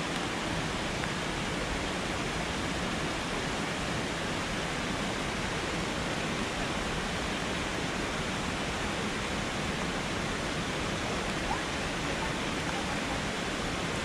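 Steady rushing of a fast mountain river, an even roar of white water that doesn't change.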